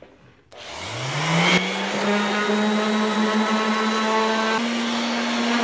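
Electric random orbital sander switched on about half a second in, its motor winding up in a rising whine, then running steadily as it sands a pine board smooth for staining; its pitch steps up slightly near the end.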